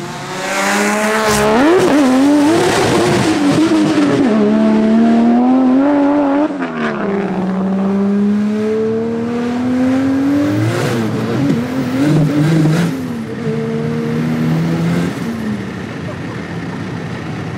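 Big-turbo Ford Barra inline-six in a manual FG Falcon XR6 Turbo ute pulling hard under full throttle, heard from inside the cabin. Its pitch climbs in long sweeps and drops back several times as the gears change.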